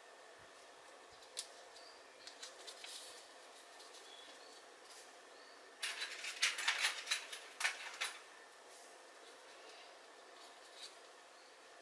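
Handling noise from hands working on a crocheted yarn bag and its materials: faint scattered clicks and rustling, with a denser burst of crackly rustling about six to eight seconds in.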